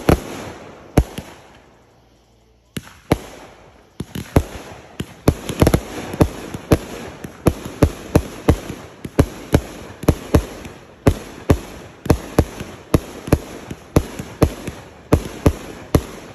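Aerial fireworks going off as a string of sharp bangs from a multi-shot firework cake. The bangs are sparse at first, then come about twice a second from about four seconds in.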